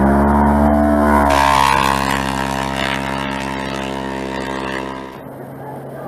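Rally-raid buggy's engine revving up hard as it accelerates past, then holding a high, steady pitch at full throttle before dropping away about five seconds in.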